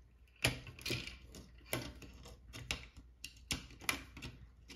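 Screwdriver working a very tight screw that holds the circuit board in a plastic telephone base: a string of irregular sharp clicks and short scrapes, roughly two a second, as the bit grinds and slips in the screw head.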